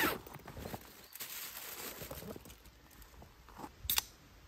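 A soft cooler bag is unzipped and rummaged through, a soft rustling. Near the end comes a single sharp crack: a beer can's ring-pull being opened.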